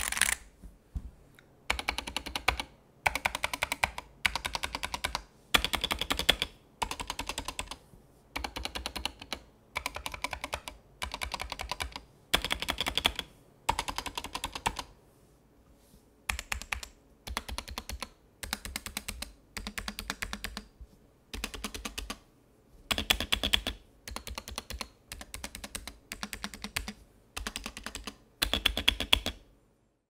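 Large stabilized keys on a GK61 keyboard with Gateron Optical Yellow switches in a plastic case being pressed in short bursts of clacks, with pauses between them. The first half is without case foam and the second half is with shelf-liner foam. The keys sit on factory pre-lubed stabilizers that the owner calls terribly done on all but the right shift.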